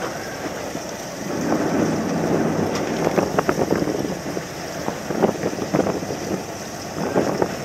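Wind buffeting the microphone on the deck of a small fishing boat at sea, with water slapping against the hull: a low, uneven rushing noise broken by frequent short gusts and splashes.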